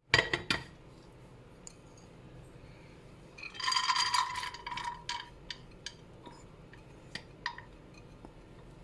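Washed dal being tipped from a bowl into a pressure cooker: a few clicks at the start, then a scraping, ringing rush of metal on metal about three and a half seconds in, followed by scattered light clinks and taps.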